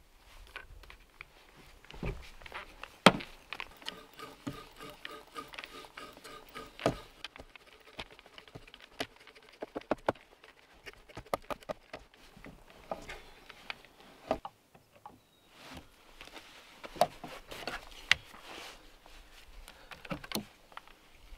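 Hand brace turning an auger bit through a wooden leg: the crunch and rhythmic squeak of the bit cutting wood, broken by sharp wooden knocks and clicks now and then.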